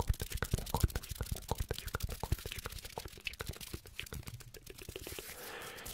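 ASMR hand sounds close to the microphone: rapid, crisp clicks and crackles from moving and rubbing fingers, thinning into a softer rustle near the end.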